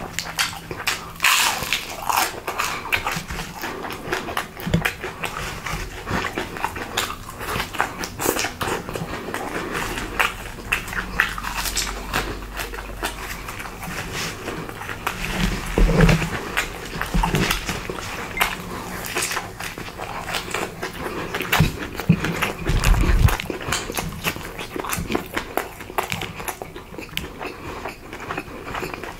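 Close-miked chewing and crunching of food: dense, irregular crackles and wet clicks, with a few heavier bites.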